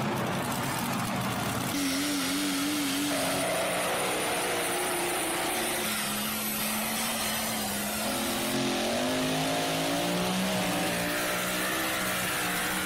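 Engines of pulling trucks and tractors running flat out under load, loud and steady, the engine note wavering and climbing in pitch.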